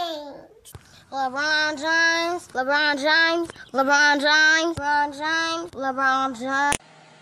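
A child singing a short tune in a series of held notes, with brief breaks between them, cut off abruptly near the end. At the very start, the tail of a toddler's excited squeal falls in pitch.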